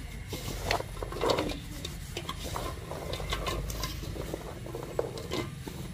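Cotton cloth being pressed and rubbed over raw potato sticks in an aluminium bowl: irregular rustling and scraping, with light clicks as the sticks shift against each other and the metal.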